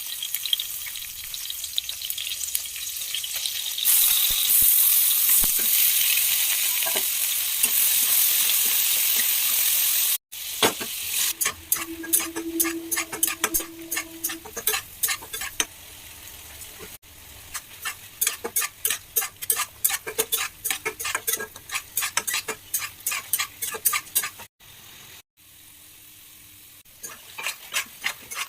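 Food frying in hot oil in a pan, a steady sizzle that grows louder about four seconds in. Later a spatula scrapes and stirs the pan over and over, with rapid clicking strokes over a quieter sizzle.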